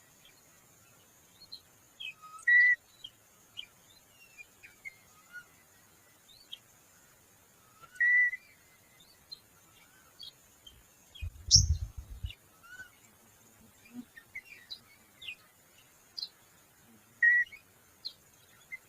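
Wild birds calling with many short chirps and whistled notes, three louder whistles standing out, about a quarter, two fifths and nine tenths of the way through. A low thump comes about halfway.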